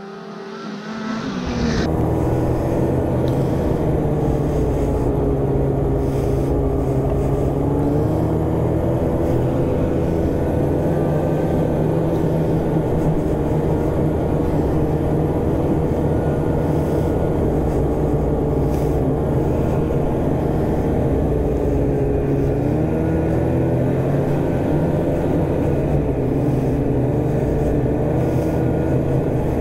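Snowmobile engine running steadily at trail speed, its pitch dipping and rising slightly a few times as the throttle changes; it swells up to full level about two seconds in.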